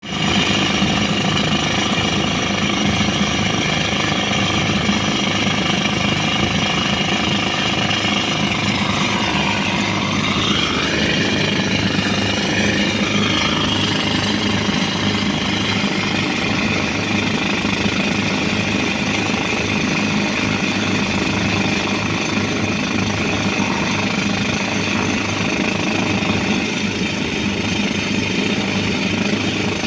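Pneumatic rock drill hammering steadily into stone, with the air compressor's engine running underneath. The engine's pitch sags and comes back up about ten seconds in, as the load on it changes.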